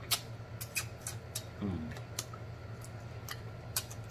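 Close-up mouth sounds of eating crab: scattered wet lip smacks and sucks, with a short hum about one and a half seconds in, over a low steady background hum.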